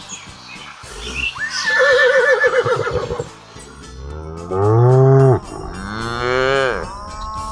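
A horse whinnies with a quavering pitch about two seconds in, then cattle moo: one long, low moo that drops in pitch as it ends, followed by two shorter moos.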